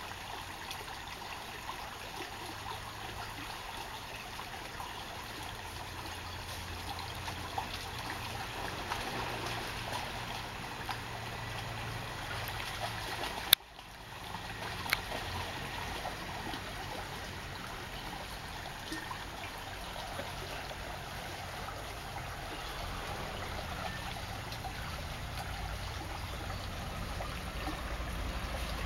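Shallow rocky stream trickling steadily over stones. One sharp click about halfway through, after which the sound briefly drops out and returns.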